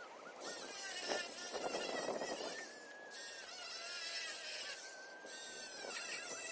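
A power tool cutting scrap metal in three bursts of about two seconds each. Each burst is a harsh hiss with a whine whose pitch wavers under load.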